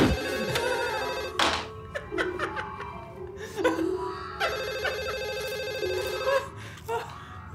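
Telephone ringing in repeated bursts, with a man laughing while it rings.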